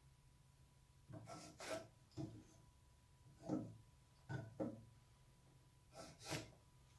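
Pencil drawing straight lines along a square on a wooden 4x4: a handful of short, faint scratchy strokes.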